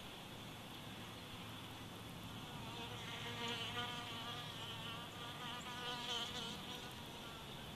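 A flying insect buzzing, its drone wavering in pitch and growing louder in the middle, over a steady background hiss.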